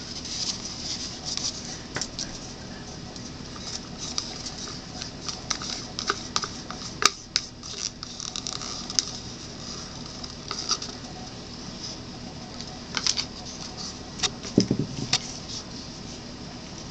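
Scattered small clicks, taps and rustles of gloved hands handling a plastic cup of acrylic paint over a canvas, with a soft low thump near the end.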